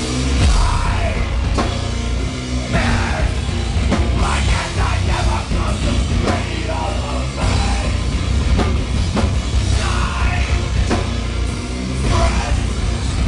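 Heavy rock band playing live at full volume: drum kit and electric guitars with a singer's voice over them.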